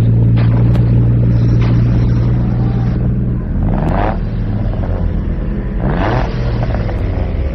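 Car engines idling with a deep steady hum, then revved hard about three and a half seconds in and again about six seconds in, the pitch sweeping up each time.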